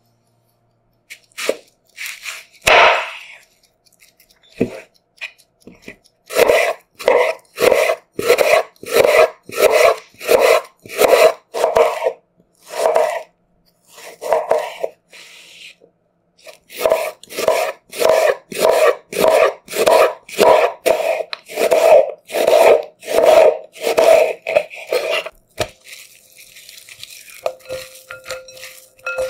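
A kitchen utensil scraping through food in even back-and-forth strokes, about two a second, in two long runs with a pause between them.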